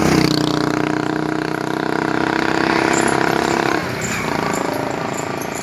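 A motorcycle engine running steadily as the bike rides past close by; its note breaks off a little under four seconds in.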